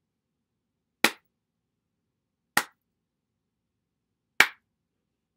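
One person's slow clap: three sharp hand claps, about one and a half to two seconds apart, the gaps growing slightly longer.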